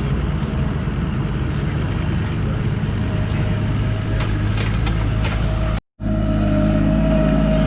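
Vehicle engine running steadily. About six seconds in, a cut drops it to silence for an instant, and it gives way to a steadier engine drone with a constant whine.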